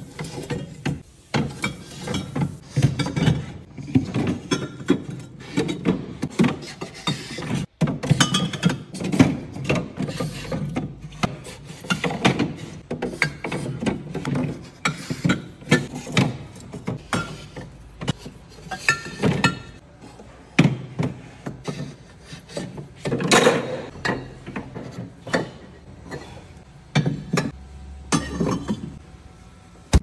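Glass wine bottles knocking and clinking against the wooden racks of a wine fridge as they are laid in one after another, an irregular run of taps and knocks.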